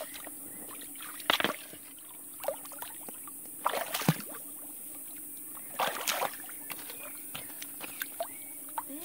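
Hands sloshing and splashing in shallow stream water while groping for fish in a hollow under a rock, in short bursts about a second or two apart, with a few light clicks.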